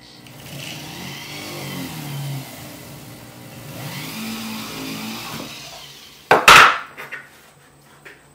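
Handheld rotary tool spinning a small bristle brush against a silver spoon: the motor's hum rises and falls in pitch as the brush is pressed to the metal, over a scratchy hiss from the bristles. About six and a half seconds in comes a short, much louder burst of noise, followed by a couple of faint clicks.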